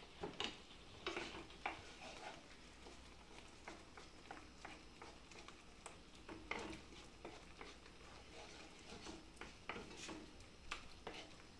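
Spatula stirring a thick pepper and ricotta sauce in a frying pan: soft scraping with scattered light clicks against the pan.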